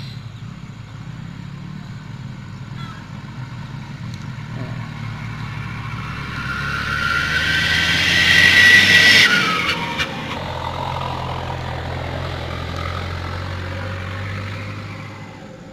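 A motor vehicle's engine passing by. It grows louder to a peak about nine seconds in and drops off sharply, then a lower engine hum carries on and fades near the end.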